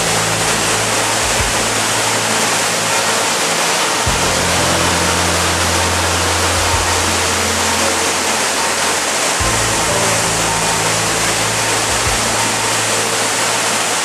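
Waterfall in flood after heavy snowmelt: a loud, steady rush of falling water.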